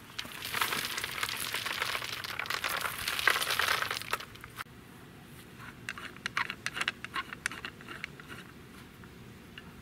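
Nuts rattling and shifting together inside a plastic mesh basket as it is handled, a dense clatter lasting about three and a half seconds. Then scattered light clicks and taps.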